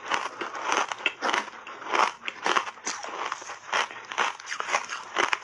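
Close-miked chewing and biting of refrozen block ice coated in matcha powder: a rapid, irregular run of crisp crunches as the ice is broken up in the mouth.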